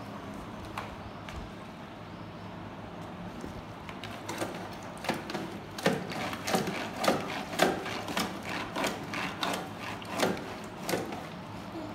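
Flat mop worked up and down through the slot of a plastic self-wringing mop bucket: a run of short scraping strokes, about two a second, starting about four seconds in.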